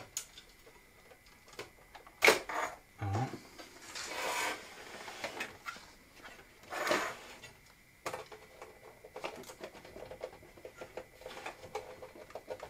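Clicks, knocks and brief scraping from handling a computer case and its hard drive, with one sharp loud click about two seconds in and a run of small rapid clicks in the second half.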